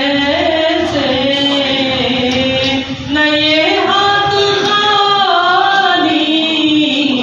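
A man singing a naat, an Urdu devotional poem in praise of the Prophet, solo and unaccompanied, in long held melodic lines that bend slowly from note to note, with a short breath about three seconds in.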